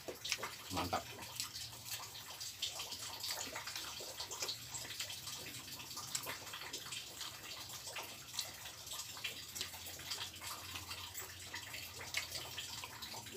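Close-up eating sounds: fingers picking through rice and fried catfish with sambal, and chewing, over a steady fine patter like light drizzle and a low steady hum.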